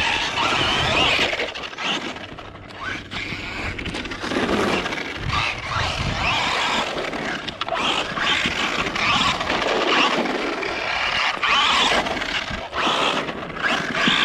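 Traxxas Rustler 4x4 VXL radio-controlled truck driving hard on dirt: the brushless motor's whine rises and falls with the throttle, over tires scrabbling and scraping on the ground.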